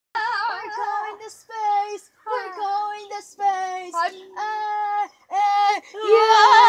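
A high voice singing a string of short held notes with brief breaks between them, then a louder, longer held note near the end.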